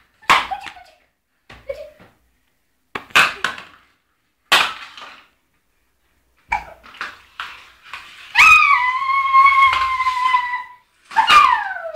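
A baby's voice: short breathy laughs, then a long high-pitched squeal held for a couple of seconds, and a shorter squeal that falls in pitch near the end.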